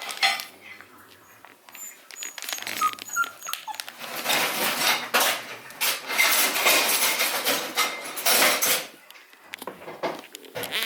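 Seven-week-old beagle puppies whimpering in play, with a longer stretch of rustling and scuffling in the middle.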